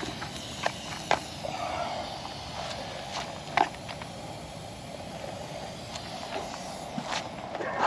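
Handling noise from the refrigeration hoses and gauge manifold: a few sharp clicks and light knocks, the loudest about three and a half seconds in, over a faint steady background.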